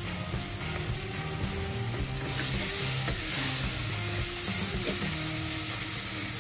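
Ground mint-and-onion masala sizzling in oil and ghee in an aluminium pressure cooker, stirred with a wooden spatula. The sizzle grows louder a little over two seconds in, as the stirring starts.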